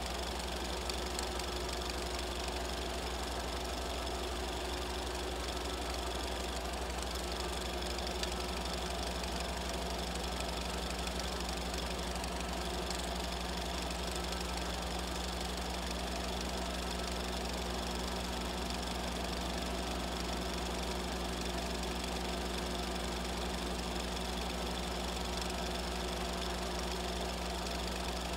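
Steady, unchanging mechanical hum with a low drone and a few constant higher tones. It is machine noise on the soundtrack of a silent home-movie transfer, not sound from the scene itself.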